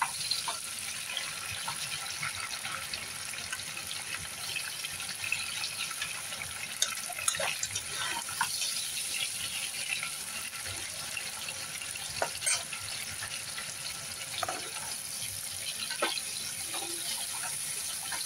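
Sliced tomatoes and whole spices sizzling in hot oil in a stone-coated non-stick pan over high heat, a steady hiss. A few short taps and scrapes of a spatula against the pan come as they are stirred.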